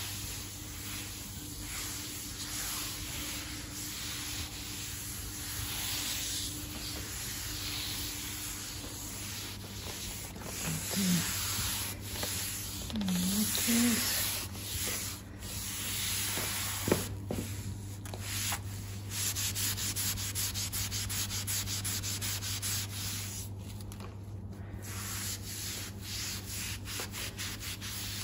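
Microfiber cloth scrubbing Bar Keepers Friend abrasive powder over a quartz worktop: a continuous gritty, scratchy rubbing of back-and-forth strokes. The strokes turn short and rapid about two-thirds of the way through.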